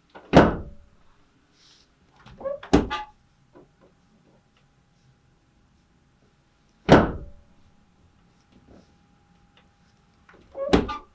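Four heavy thuds a few seconds apart, some with a short rustle just before: a chiropractor's thrusts during adjustments on a large, muscular man lying on a treatment table.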